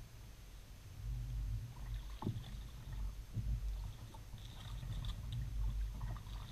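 Kayak paddling heard through a camera mounted on the bow: a low rumble of the hull moving through the water, with a couple of knocks about two and three and a half seconds in and light splashes and drips from the paddle.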